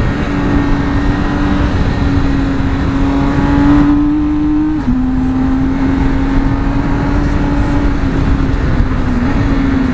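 BMW K1600 motorcycle's inline-six engine running steadily under way, with heavy wind rush from riding at speed. The engine note drops suddenly about halfway through as it shifts up a gear, then sags slowly near the end.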